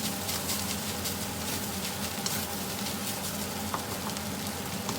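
Beef fried rice sizzling steadily in a hot pan, with a few light clicks near the end.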